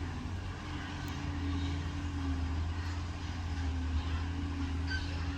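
Diesel engine of a backhoe loader running steadily under work, its pitch wavering slightly.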